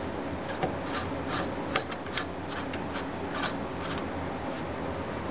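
Small clicks, taps and brief scraping rubs of hands working computer parts loose, over a steady low hum.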